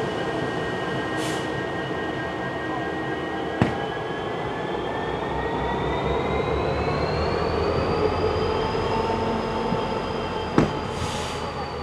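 Slow-moving CN local freight train rolling by, its steel wheels squealing in several high tones that slowly rise and then fall. Two sharp clicks cut through, one about a third of the way in and one near the end.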